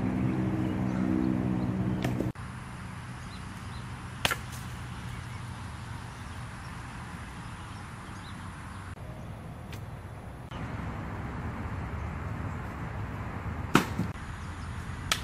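Traditional bow being shot several times: separate sharp snaps of bowstring release and arrow, the loudest near the end, over outdoor background. A steady low hum runs through the first two seconds.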